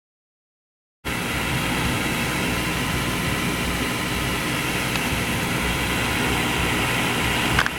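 Steady rushing airflow of a hot air rework station blowing, cutting in about a second in and cutting off near the end, with a small click just before it stops.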